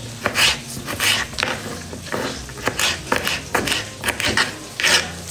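Kitchen knife slicing a cucumber on a cutting board: a run of short, sharp, irregular cuts as the blade goes through and strikes the board.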